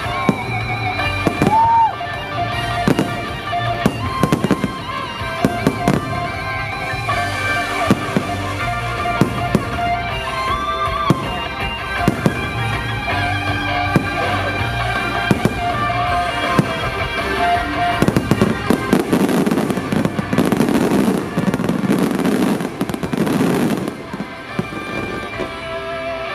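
Fireworks bursting, one after another, over a music soundtrack. About three-quarters of the way through, the bursts pile up into a dense barrage for several seconds, then thin out again.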